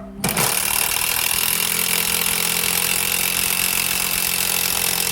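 Makita 18-volt LXT cordless impact wrench running, starting about a quarter second in and then running steadily and loudly.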